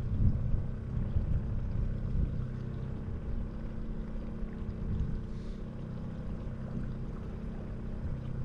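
Fishing boat's motor running steadily, a low, even drone.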